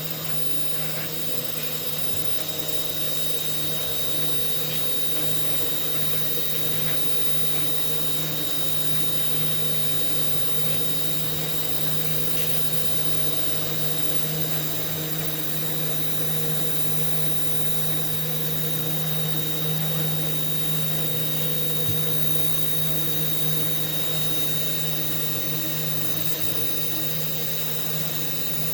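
CNC router spindle running steadily while carving, a constant low hum with a thin high whine above it.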